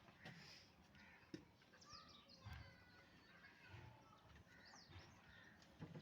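Faint birds chirping on and off, with a few soft low thuds.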